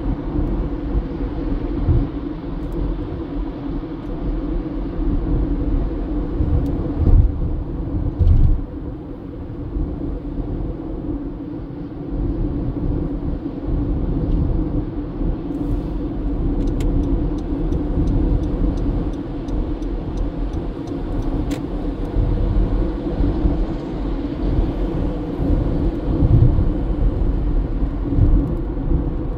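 Car being driven, with a steady rumble of engine and road noise. For a few seconds past the middle there is a run of light, even ticks, about three a second.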